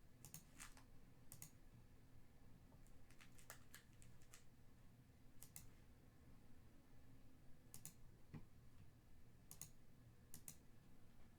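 Faint, irregular clicks of computer keyboard typing and mouse clicks, a few keystrokes at a time with pauses between, over quiet room hum.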